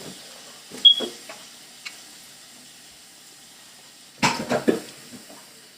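Cutlery clinking and scraping on a plate while eating: a short ringing clink about a second in, then a quick cluster of scrapes and knocks near the end.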